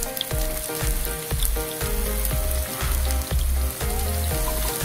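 Meatballs sizzling steadily in hot oil in a frying pan as they sear, over background music with a steady low beat.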